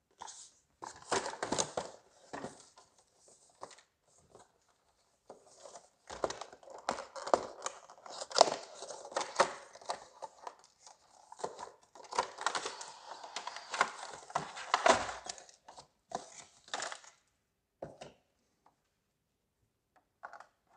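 Cardboard retail box being opened and unpacked by hand: irregular scraping, rustling and crinkling of the card flaps, inner tray and paper leaflets, with a few short pauses.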